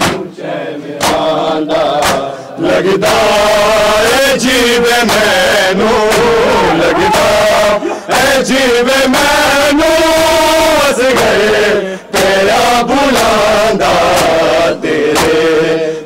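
A group of men chanting a noha lament in unison, loud and close, with sharp hand slaps of matam chest-beating cutting through the singing.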